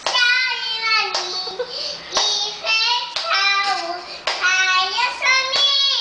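A toddler singing a song in a high child's voice: a run of held notes with short breaks between phrases.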